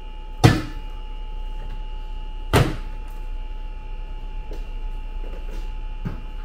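Plastic trim panel in a Tesla Model 3 frunk popping off its clips as it is pulled free: two sharp snaps about two seconds apart, then a fainter one near the end, over a steady hum.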